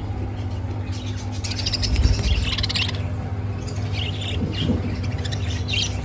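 Caged budgerigars chirping and chattering in scattered short high calls, over a steady low hum, with a dull thump about two seconds in.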